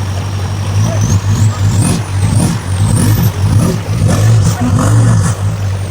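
Car engine revving hard in repeated surges, with a high whine that climbs and falls several times, as the vehicle labours to get through a slippery, muddy stretch of trail.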